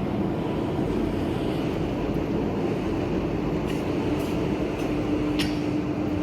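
Steady mechanical running noise with a low hum; a steady tone joins about three and a half seconds in, and a sharp click sounds near the end.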